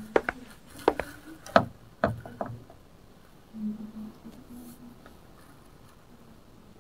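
A few sharp clicks and knocks in the first two and a half seconds, like small hard objects tapped together, then a faint low tone for about a second.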